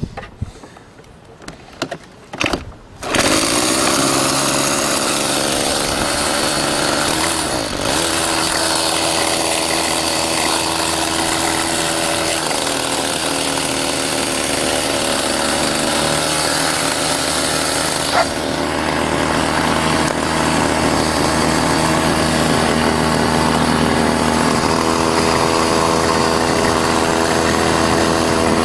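Small 32cc two-stroke Craftsman string-trimmer engine, converted into a canoe outboard motor. After a few brief sounds it starts about three seconds in, then runs steadily, its engine speed shifting a few times.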